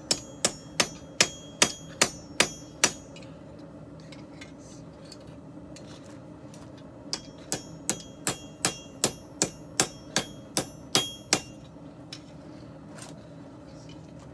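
Hand hammer striking steel on an anvil while forging a messer blade, each blow ringing briefly. Two runs of blows at about two and a half a second: about eight at the start, then a pause, then about eleven more starting some seven seconds in.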